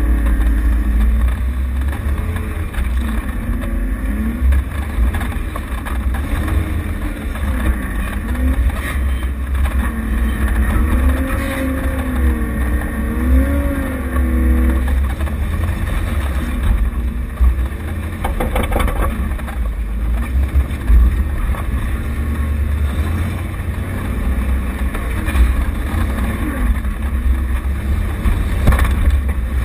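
Off-road vehicle's engine running under a heavy low rumble, its pitch rising and falling as the throttle changes. A few knocks are heard, around the middle and near the end.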